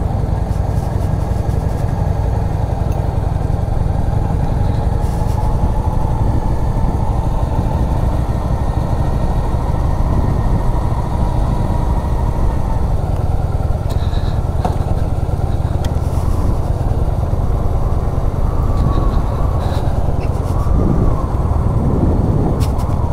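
V-twin chopper motorcycle being ridden along at a steady pace, its engine running evenly under way.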